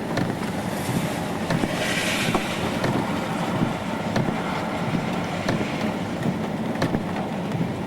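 Steady rushing noise of storm wind and rain, with scattered sharp taps throughout and a brief hissing swell about two seconds in.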